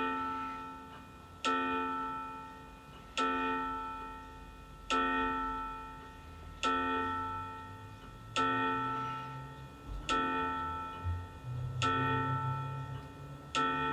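AMS quartz battery chiming wall clock striking the hour from its built-in sound unit: the same single bell tone struck about every 1.7 seconds, eight times, each ringing and dying away before the next.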